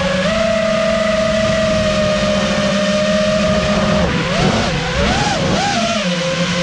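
FPV quad's brushless motors and propellers whining, heard from the GoPro mounted on the quad, with a haze of prop wash and air noise. The whine holds a steady pitch for about four seconds, then rises and falls several times with quick throttle blips near the end.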